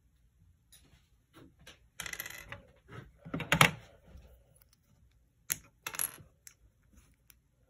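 Plastic LEGO pieces clicking and clattering as they are handled, pulled apart and set down on a wooden table. The loudest rattle comes a little after three and a half seconds in, with two sharp clicks about two seconds later.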